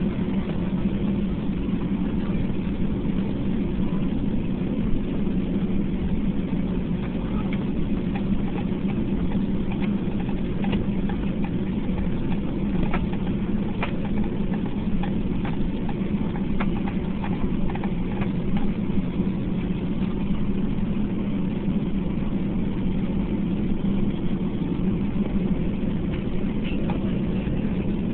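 Boeing 757 jet engines running steadily at low taxi power, heard from inside the passenger cabin as an even, low hum.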